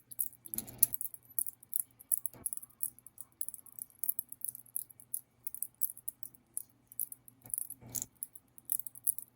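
Number wheels of a Master Lock 643D combination padlock being rolled by thumb to scramble the code: a quick run of light clicks and rattles, with a few louder knocks about a second in, around two and a half seconds and near the end.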